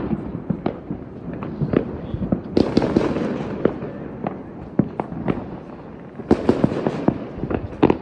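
Fireworks going off: an irregular string of sharp bangs and pops, with two denser bursts of crackling, one about two and a half seconds in and one just past six seconds.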